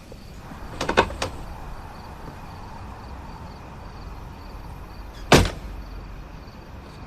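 A quick cluster of light sharp clicks about a second in, then one loud sharp knock about five seconds in, over quiet room tone with a faint regular ticking.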